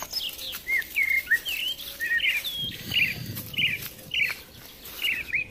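Birds chirping: a steady run of short, bending chirps, about two a second.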